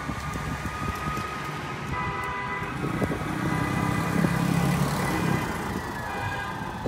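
A slow line of cars and SUVs drives past with engine and tyre noise, one SUV passing close about three to five seconds in. Fire engine sirens sound steadily in the background, their pitch falling near the end.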